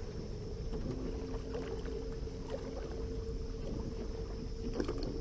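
A small boat's motor running steadily at low speed: a hum with two held tones.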